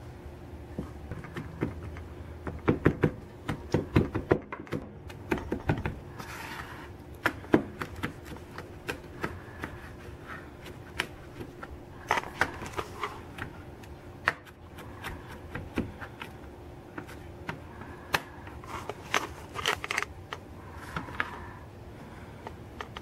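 Kitchen knife mincing a Carolina Reaper chili on a plastic cutting board: sharp taps of the blade on the board in irregular quick runs.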